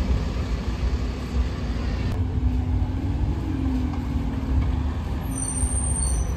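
Bus engines running in street traffic: a double-decker bus pulling away, then, after a cut about two seconds in, a single-decker bus approaching, its engine a steady low rumble with a droning tone. A brief high squeal near the end.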